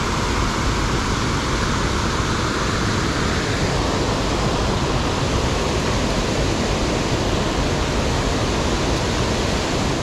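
Waterfall pouring over rock ledges into a pool: a steady, even rush of water.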